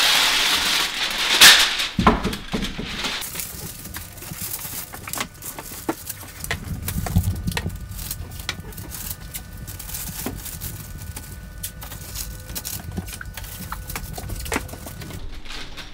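Brown masking paper being pulled off a hand masker dispenser and torn free with a sharp rip about a second and a half in. This is followed by paper crinkling and tape being pressed down, with scattered light knocks and taps.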